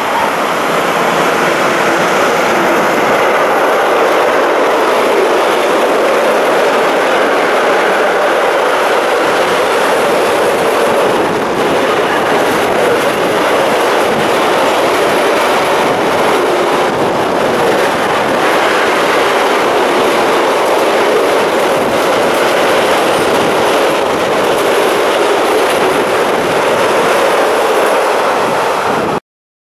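Freight train of double-deck car-transporter wagons hauled by an E483 electric locomotive passing at speed, a steady loud rumble and rattle of wheels on the rails. It cuts off suddenly near the end.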